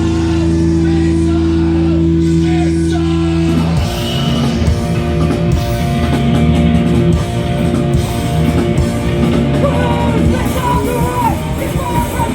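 Punk band playing live in a hall. A held droning chord sounds for the first few seconds, then about four seconds in the full band comes in with distorted guitars and shouted vocals.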